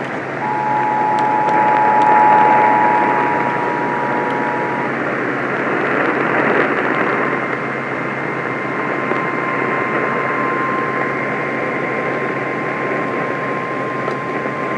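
Emergency Alert System two-tone attention signal, two steady tones sounding together for about four and a half seconds, over a constant hiss of radio static. After it the static carries on with a faint steady whistle.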